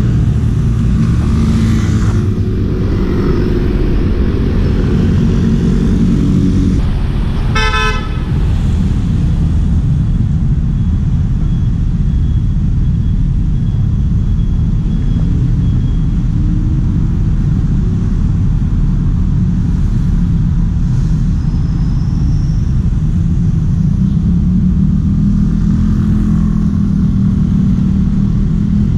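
Heavy wind rumble on a bicycle-mounted action camera's microphone while riding through city traffic, with a short vehicle horn toot about eight seconds in.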